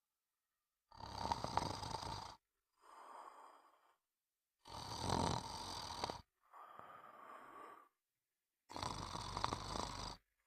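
Snoring: three loud snores about four seconds apart, each followed by a quieter, shorter breath.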